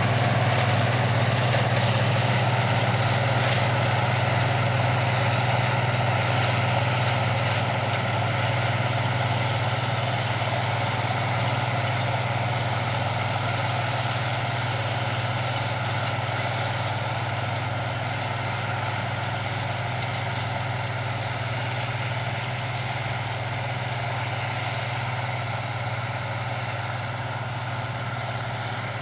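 Diesel engines of International 4366 and 4166 four-wheel-drive tractors running steadily under load while pulling chisel plows, a continuous low drone that slowly fades.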